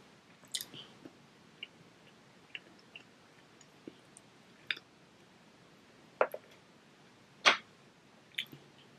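Quiet eating sounds: a scattering of short, soft clicks and smacks from chewing and handling food with a wooden spoon, the loudest about seven and a half seconds in.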